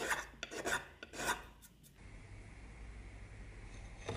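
A metal file scraped across the rusty steel blade of an old butcher cleaver, three rasping strokes in about a second and a half.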